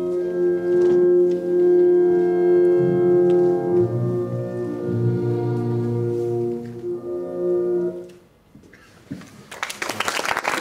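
Slow music of long held chords, fading out about eight seconds in. After a short lull, applause breaks out near the end.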